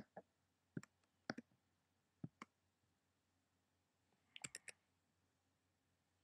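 Computer mouse buttons clicking, single and paired clicks spread over the first couple of seconds and a quick cluster of clicks about four and a half seconds in, with near silence between them.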